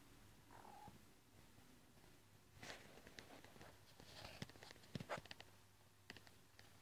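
Faint domestic cat purring, with a short high call under a second in and scattered soft taps and rustles about three to five seconds in.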